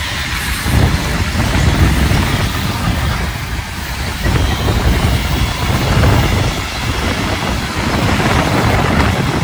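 Freight train wagons (covered hoppers, sliding-wall and container wagons) rolling past at close range: a loud, continuous rumble and clatter of steel wheels on the rails.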